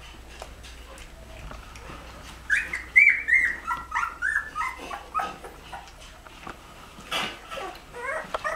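Young Rhodesian Ridgeback puppies whimpering and squealing: a quick run of short high cries, each dropping in pitch, starting a couple of seconds in, with a few more near the end.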